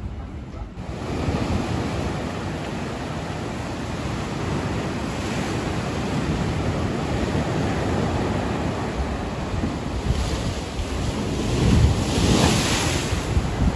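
Sea surf breaking and washing up a sandy beach, with wind on the microphone, starting about a second in. A bigger wave surges louder near the end.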